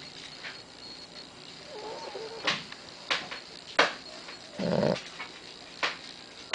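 Dog snoring in its sleep: a rough snore about five seconds in and another starting at the very end, with a few short sharp sniffs or clicks between and a faint wavering whine about two seconds in.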